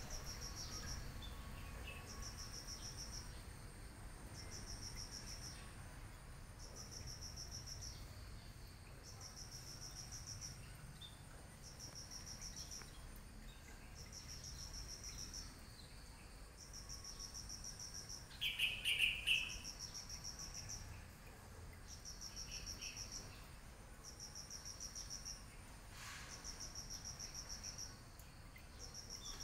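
An insect chirping in short, high, pulsed trills, one about every second and a half, with a brief louder call a little past the middle.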